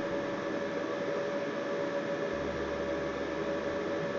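A small electric fan running steadily: an even hiss with a steady whining tone.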